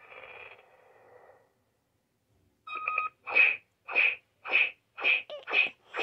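Electronic sound effects from a Power Rangers Cosmic Fury morpher toy's small speaker as its button is pressed: a tone fading out in the first second or so, a short pause, then a quick beep and a regular run of short bright tones about two a second.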